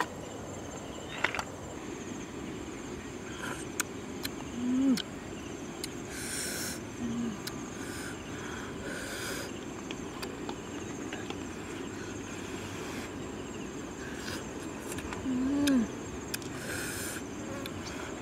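Wooden spatula clicking and scraping against a metal wok full of cooked snails as they are picked out to eat, with a few short scraping hisses. Two short hums that rise and then fall, about five seconds in and near the end, over a steady high insect drone.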